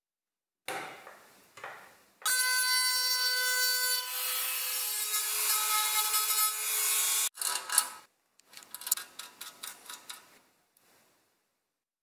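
A small handheld rotary tool with a pink abrasive stone runs for about five seconds from about two seconds in, a steady high whine as it grinds metal at a bolt hole in a painted sheet-steel panel. It is preceded by a couple of short metal scrapes and followed by a run of small metal clicks and taps.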